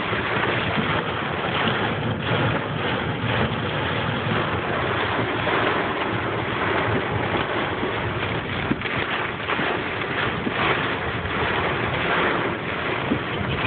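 Hail and heavy rain pelting a car's roof and windshield, heard from inside the cabin: a dense, steady patter of countless small hits.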